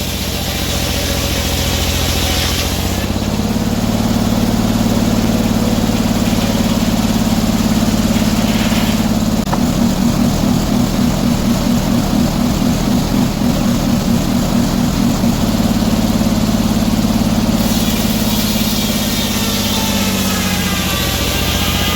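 Engine running steadily; from about three seconds in its sound grows heavier, with an uneven pulsing beat in the middle, and it eases back shortly before the end.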